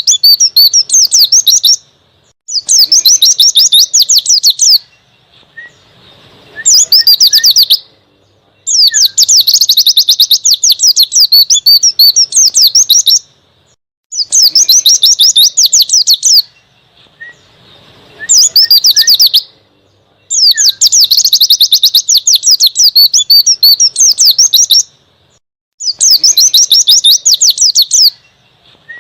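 White-eye (pleci) singing its wild, forest-style song: repeated bursts of fast, high twittering, each from about one to four seconds long, separated by short pauses.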